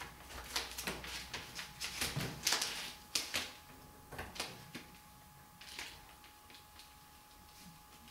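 Clear plastic transfer tape crackling and rustling as it is peeled back off a vinyl wall decal and rubbed against the wall. It comes as a quick run of short, scratchy crackles, busiest in the first three or four seconds and then only now and then.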